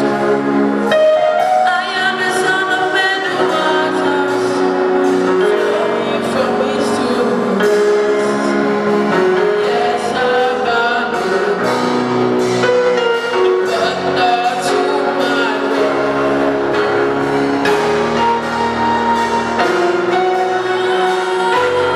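Gospel song: singing voices over instrumental backing, holding long notes that change pitch every second or two.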